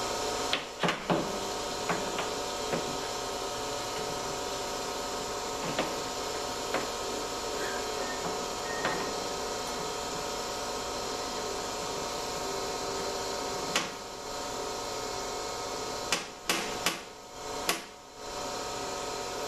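Scattered metal knocks and clinks as drive-shaft parts and tools are handled and fitted back together, with a cluster of louder knocks near the end, over a steady hum.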